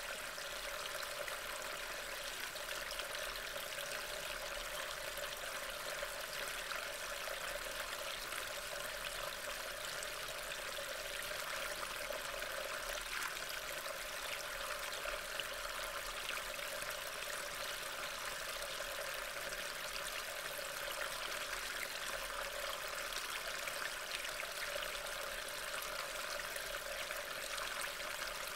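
Steady, even hiss of rain.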